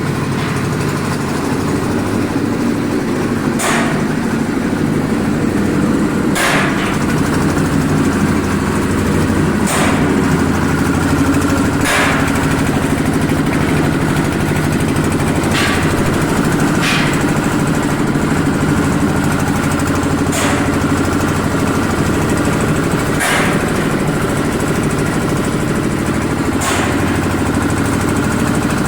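An engine running steadily, with a sharp knock or clank every two to four seconds.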